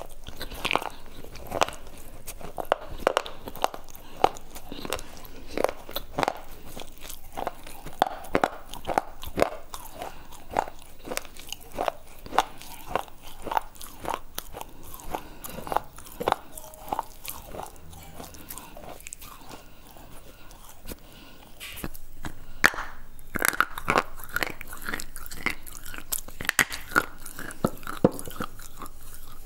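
Close-miked chewing and biting of brittle slate bar, a dense run of sharp, dry crunches with each bite and chew. The crunches thin out and go quieter for a few seconds a little past halfway, then come louder and thicker again for the last third.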